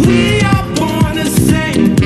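Live band music from a jazz-funk band with saxophone and sousaphone, drums hitting a steady beat.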